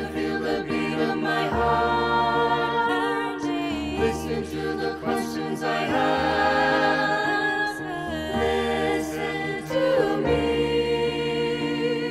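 Mixed-voice choir singing in close harmony, the voices holding sustained chords that change about every two seconds.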